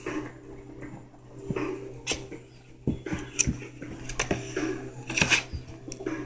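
Irregular sharp clicks and knocks from puppies being handled and scrabbling on blankets in a plastic kiddie pool, the loudest about three and a half and five seconds in, over a steady low hum.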